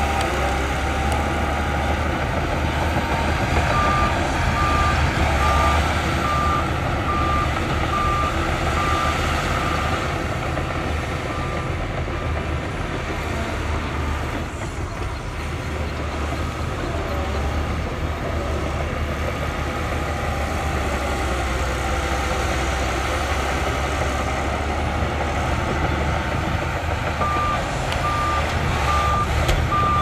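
A heavy earthmoving machine's engine running steadily, with its reversing alarm beeping in an even series for several seconds, stopping, and starting again near the end as the machine backs up.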